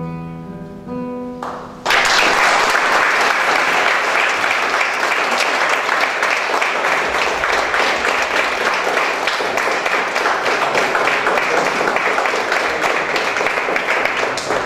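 The last notes of an acoustic guitar ring on and fade. About two seconds in, the audience starts applauding suddenly, and the applause carries on steadily.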